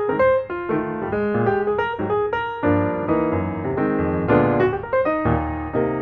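Background piano music: a lively run of single notes over chords, several notes a second.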